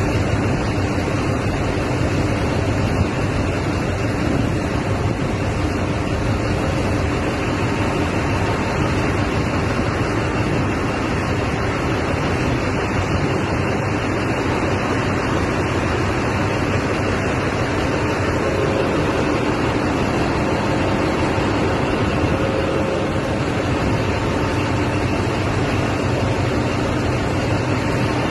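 Heavy rain and rushing floodwater, a dense, steady noise, with a vehicle engine running steadily underneath.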